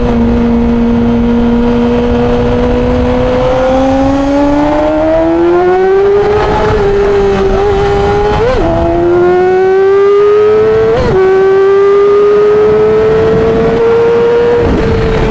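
2009 Yamaha R6's inline-four engine through a full Yoshimura exhaust, running on at steady high revs, then climbing in pitch as the bike accelerates. The engine note twice flares sharply and briefly midway, then keeps rising slowly.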